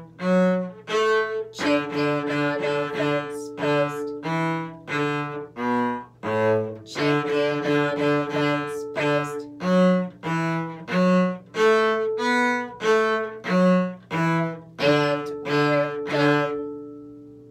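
Cello playing a simple beginner string tune in short, separate bow strokes at a steady beat, some notes left ringing under the next. The playing stops about a second before the end and the last note dies away.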